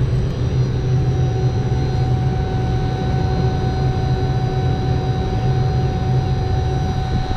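Refrigeration vacuum pump running with a steady low drone while evacuating a mini-split line set.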